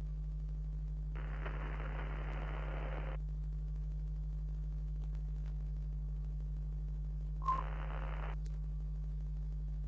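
Retro television end-card sound effect: a steady low electrical hum, with two bursts of static hiss, the first about a second in and lasting some two seconds, the second shorter, near the end, opening with a brief blip.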